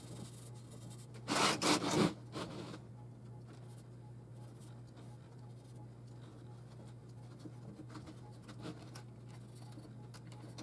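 Hands rubbing and handling craft materials: a brief loud rough rustle about a second and a half in, then faint scratching and rubbing as fingers work in a tin of gold gilding wax, over a steady low hum.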